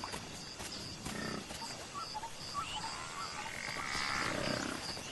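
Evening bush ambience at low level: a high chirp repeats evenly about two and a half times a second, with scattered short calls and a brief warbling call about four seconds in.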